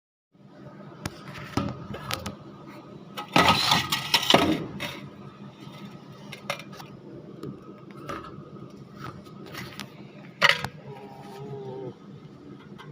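Metal clinks and clatter of parts being handled, with a loud clatter lasting about a second a little over three seconds in and another sharp clink about ten seconds in.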